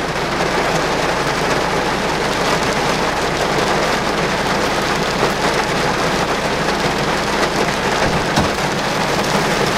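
Steady, loud rushing noise with a low, even hum beneath it, inside a car cabin.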